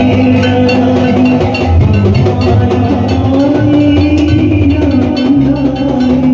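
Loud music with a steady drum and percussion beat.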